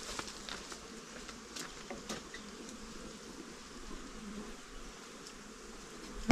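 A swarm of bees or hornets buzzing steadily, with scattered light clicks throughout. A single sharp knock comes right at the end.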